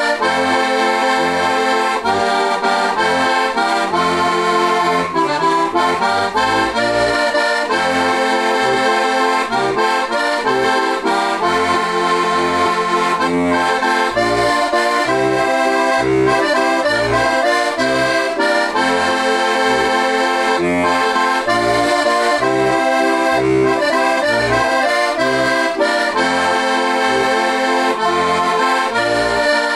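A four-voice heligónka (diatonic button accordion) in C-F, with hand-made Tipo a mano brass reeds and a deep octave voice, playing a folk tune. The chords and melody play over regular pulsing bass notes.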